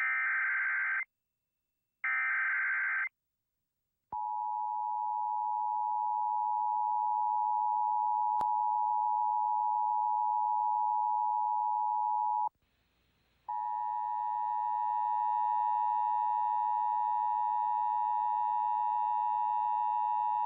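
Emergency Alert System tornado warning signal. It opens with two one-second bursts of warbling digital header data a second apart. About four seconds in, a long, steady attention tone begins. The tone breaks off for about a second roughly two-thirds of the way through, then resumes with higher tones added.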